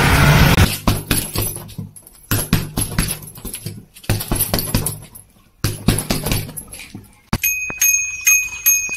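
An open safari jeep's engine running for the first moment, cut off by quick runs of punches landing on a hanging punching bag. Near the end a bicycle bell is rung rapidly, about three rings a second.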